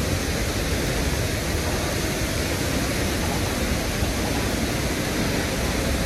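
Waterfall, the falling water rushing in a steady, even noise that does not change.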